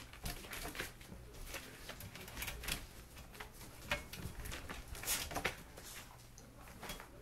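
Irregular rustling with light scratching clicks, from five-week-old puppies moving over newspaper on a plastic tarp and a blanket being shaken out and dropped over them. The loudest rustles come about five seconds in.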